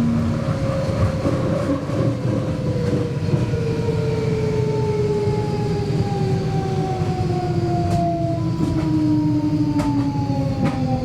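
Siemens GTO-inverter traction drive of a DSB SA S-train whining under the running noise, its several tones falling steadily in pitch with a couple of sudden steps as the train slows down.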